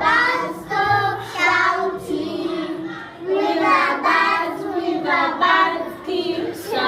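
A group of young children singing a short song together.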